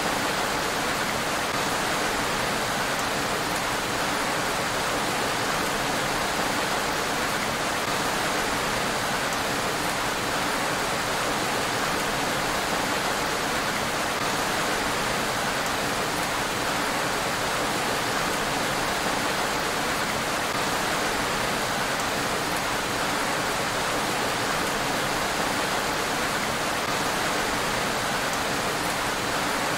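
Steady rain falling, an even unbroken hiss with no thunder.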